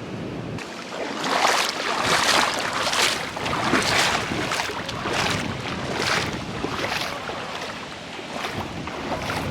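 Legs and feet splashing through shallow seawater while wading, a splash about every second.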